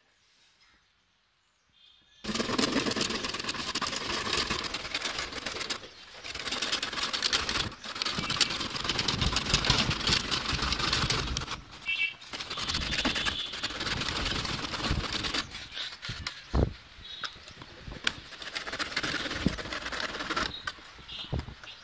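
A small hand saw cutting a rusty steel number-plate bracket: a dense rasping of blade on metal that starts about two seconds in and carries on with brief pauses.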